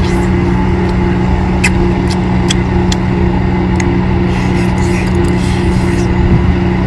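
A steady, loud engine drone with a constant low hum. Over it come several short, wet smacks and slurps from a person sucking octopus tentacles into his mouth.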